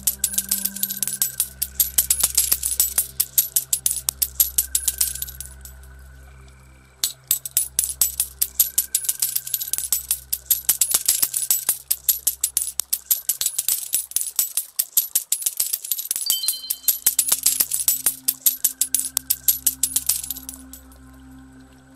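Showers of coins clinking, a rapid run of bright metallic clicks that comes in stretches of several seconds and fades out twice, over slow ambient music with long held low notes.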